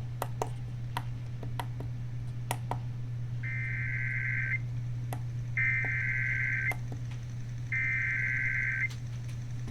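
Three SAME header data bursts of an Emergency Alert System weather alert: harsh, buzzy digital tones, each about a second long with about a second's gap between them. They are the coded header that opens a severe thunderstorm warning relay. A steady low hum runs underneath, with scattered clicks in the first few seconds.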